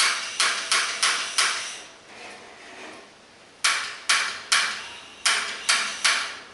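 Sharp metallic knocks with a short ring, in three bursts: five strikes about 0.4 s apart at the start, then three more about halfway through and three near the end.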